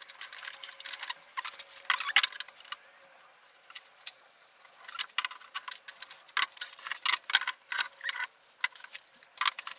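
Screw-type bar clamps being handled and tightened on pine boards and a metal level: irregular light clicks, ticks and small metallic rattles, quieter for a moment about three seconds in.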